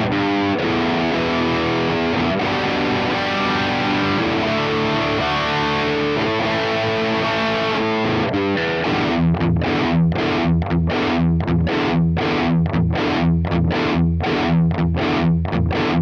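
Ibanez RG8570 J-Custom electric guitar with DiMarzio pickups, played through a Diezel VH4 amp and a Mesa Boogie 4x12 cabinet with high-gain distortion. Held, ringing notes first; from about eight seconds in, short staccato chord stabs with brief gaps between them.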